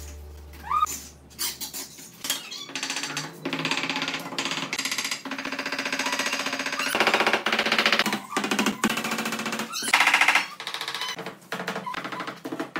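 Steel trowel scraping over wet cement mortar as a countertop is smoothed, a rasping chatter in repeated strokes of a second or two with short breaks between them.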